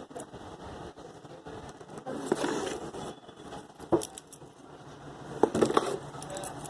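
Handling noise: rustling with scattered light clicks and rattles, a sharp click about four seconds in and a cluster of clicks near the end.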